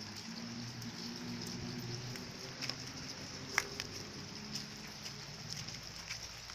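Hail shower: a steady patter of rain and hailstones, with scattered sharp ticks of stones striking and one louder tick about three and a half seconds in.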